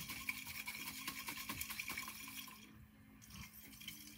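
Alcohol extract of cannabis dripping and trickling into a glass baking dish, a quick patter of drops that thins out after about two seconds. A steady low hum runs beneath it.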